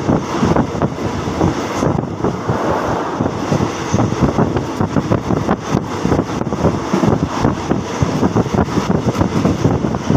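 Passenger train running at speed: a steady rumble of wheels on the track mixed with wind buffeting the microphone.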